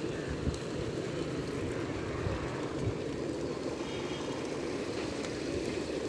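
A large flock of rock pigeons cooing all at once, a steady dense chorus of low coos.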